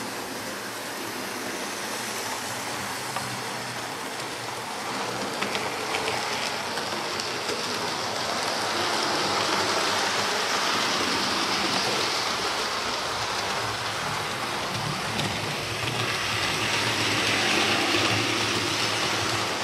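Hornby OO-gauge model trains running on the layout's track: a steady rushing whir of the electric motors and metal wheels on the rails. It grows louder about halfway through and again near the end as the Class 43 HST passes close by.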